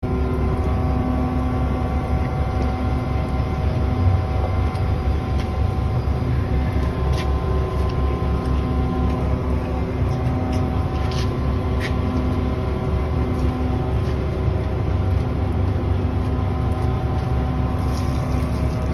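Concrete mixer truck's diesel engine running steadily at close range, a deep even rumble with a few light clicks.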